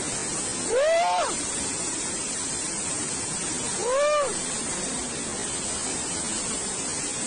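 Steady rushing roar of a swollen river of muddy floodwater. A person's voice exclaims briefly twice above it.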